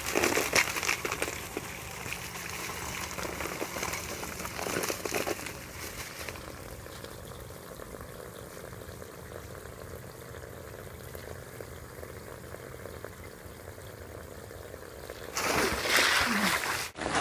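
Ice cubes rattling as they are poured from a bag onto a plastic inflatable slide, followed by water running and trickling. Near the end comes a loud rush of splashing water.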